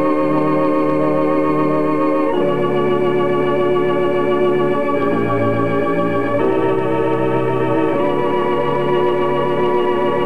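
Instrumental closing music: slow, held keyboard chords with a slight waver, moving to a new chord every couple of seconds.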